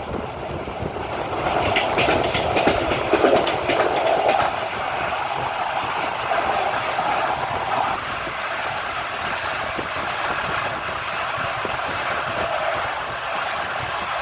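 Train wheels clattering over the rails of a moving train, with a steady rumble. A louder run of sharp clicks comes in the first few seconds, then the sound settles to an even rolling noise.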